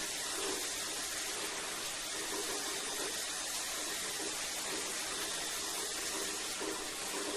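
Shower running steadily: an even hiss of water spray falling and splashing in a small room, with no breaks.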